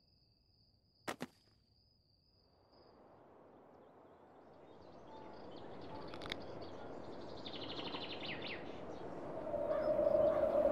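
Horror sound design: a sharp double click about a second in, then a whooshing noise that swells steadily louder, with scattered clicks and a brief fast rattle of ticks, and a droning tone coming in near the end.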